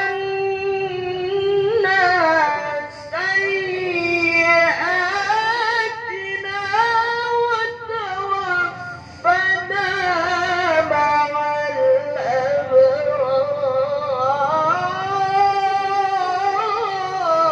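A man reciting the Qur'an in the melodic tilawah style into a handheld microphone, drawing a single breath out into a long, high ornamented melisma whose pitch glides and wavers, with only a few brief breaks.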